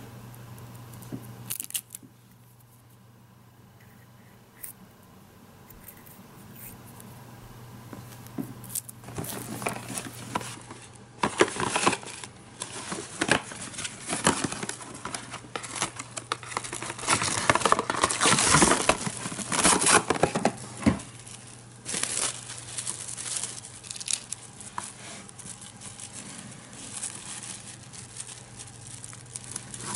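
Plastic cling film crinkling and rustling as it is handled and pressed around small chocolate discs. It starts about a third of the way in and is loudest around the middle. A steady low hum runs underneath.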